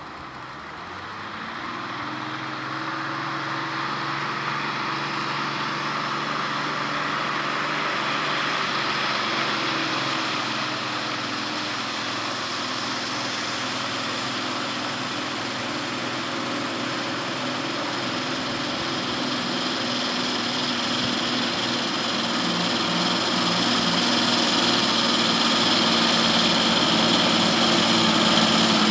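Logging truck engine running steadily, growing gradually louder.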